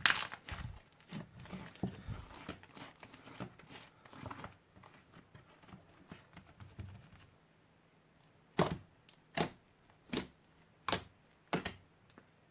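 Crunchy slime being squeezed and pressed, crackling densely at first and then thinning out, followed near the end by five short, separate crunches about 0.7 s apart.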